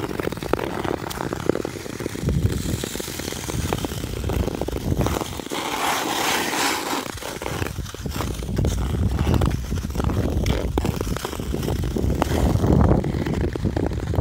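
Skate wheels rolling on an asphalt road: a continuous rough rumble with frequent clicks and knocks from cracks and grit. About six seconds in the rumble gives way to a hissing scrape for a second or so.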